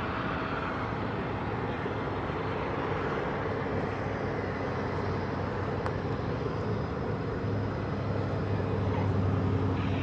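North American T-6 Texan's radial engine running at low power as the plane lands and rolls out, a steady low drone over a broad rushing noise. The engine tone grows louder near the end as the plane comes closer.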